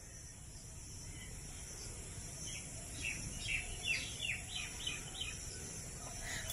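A bird calling a quick run of short chirps, each falling in pitch, from about two and a half to five seconds in, over a steady high hiss and a low background rumble.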